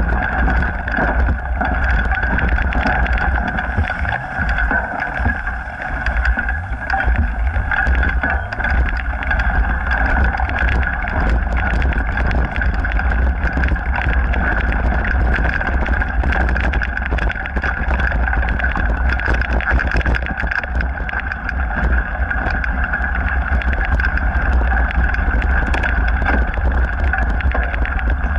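Mountain bike rolling along a dirt trail: steady rumble of wind and motion on the action camera's microphone, with tyre noise and frequent small rattles and knocks from the bike over the ground.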